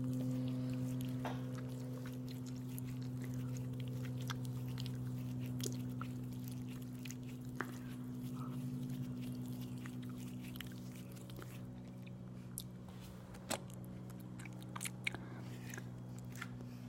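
Close-miked chewing and biting of aloe vera: scattered sticky, wet mouth clicks over a steady low hum.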